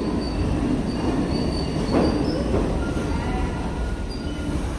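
R68-series subway train pulling into an underground station: a steady rumble of wheels on rail with thin, high-pitched wheel squeals and a single clank about two seconds in.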